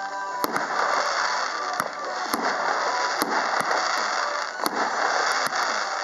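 Category F3 display fireworks going off: aerial bursts fire as sharp bangs at irregular intervals, roughly one or two a second, over a continuous dense crackle of the stars.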